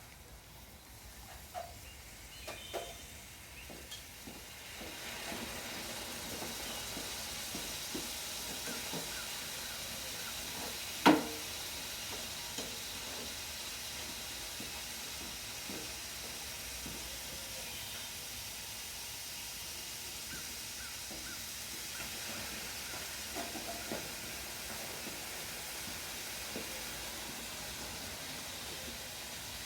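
A few scattered knocks, then a steady sizzling hiss of hot metal that sets in about five seconds in and holds. One sharp, loud clank sounds about eleven seconds in.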